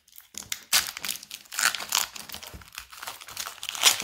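Foil wrapper of a Pokémon card booster pack crinkling and tearing as it is opened by hand, in a quick series of sharp crackles.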